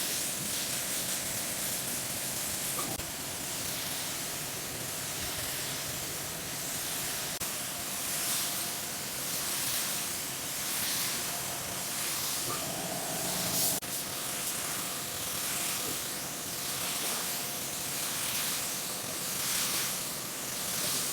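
Air spray gun spraying automotive paint: a steady hiss of compressed air and atomised paint that swells and fades in regular passes about once every second or so.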